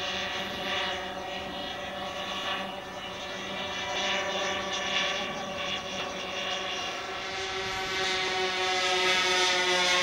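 Four O.S. 46AX two-stroke glow engines of a large radio-controlled B-17 model running together: a steady, multi-engine propeller drone that grows louder and drops slightly in pitch near the end.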